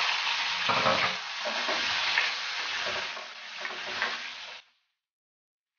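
Bell pepper strips sizzling in hot oil in a wok, stirred with a spatula that scrapes and knocks against the pan several times; the sizzling cuts off suddenly near the end.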